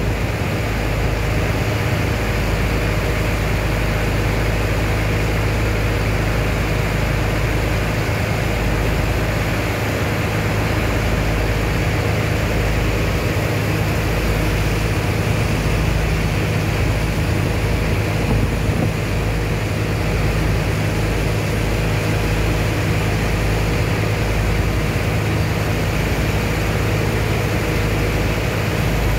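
An engine running steadily with a low hum, under the continuous splash and hiss of water jets pouring from hoses onto wet sand in a steel barge hold.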